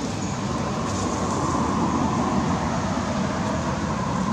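Steady road traffic noise, a motor vehicle engine running, swelling slightly partway through.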